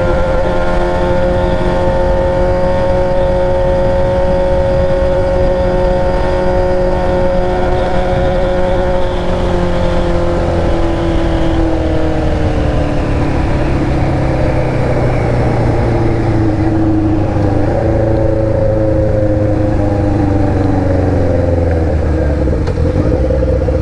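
Yamaha XJ6's inline-four engine through an Atalla aftermarket exhaust, running under way with a steady note for about ten seconds, then gradually dropping in pitch as the revs fall.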